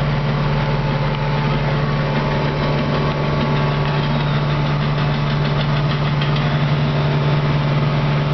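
Deutz-Fahr tractor's diesel engine running steadily at road speed, heard from inside the cab as a constant low drone, with light rattling from the cab midway.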